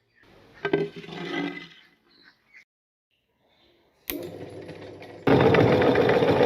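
Electric meat grinder switching on about four seconds in and, a second later, running loud and steady as it grinds crunchy cookies. Before that comes a short spell of clattering from handling.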